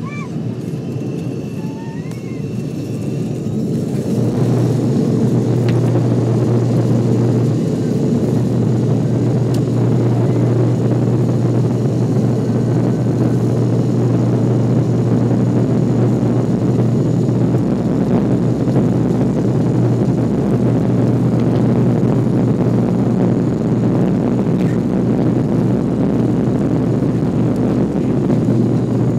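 ATR 72-500's twin turboprop engines and propellers heard from inside the cabin: a steady, loud propeller drone with a low tone. It grows louder about four seconds in as power comes up for takeoff, then holds steady at high power.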